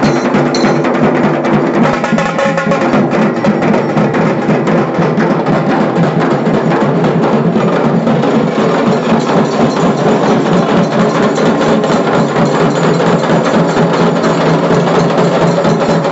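Dhol tasha ensemble playing: tasha drums struck with sticks in a dense, rapid, continuous beat over dhol bass strokes, loud and without a pause.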